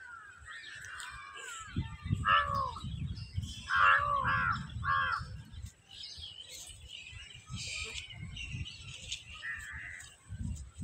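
A crow cawing, four short caws between about two and five seconds in.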